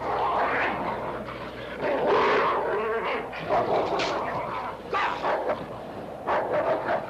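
Wolves snarling and yelping in a fight, in loud irregular bursts.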